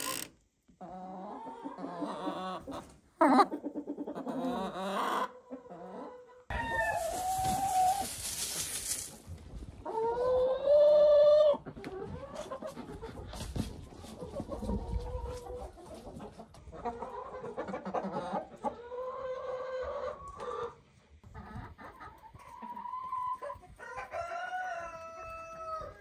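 A flock of hens clucking and squawking, with many short calls throughout. A loud rustling noise lasts about two and a half seconds from around six and a half seconds in.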